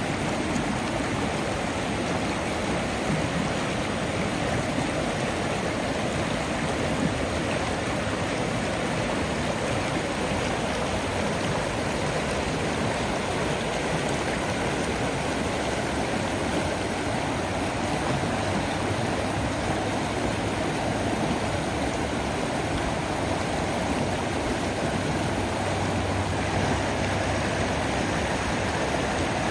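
Flowing water rushing steadily in a stream, an even, unbroken sound.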